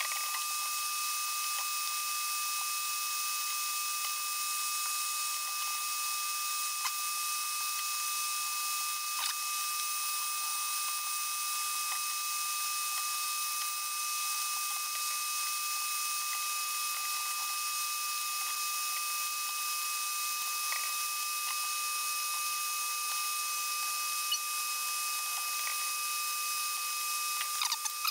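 Steady, thin whir of a solder fume extractor fan with a fixed whine, and a few faint light clicks from tools working in the amplifier chassis.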